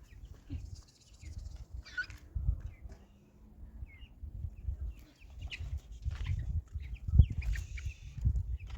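Short bird chirps scattered over an uneven low rumble, with a sharper knock about seven seconds in.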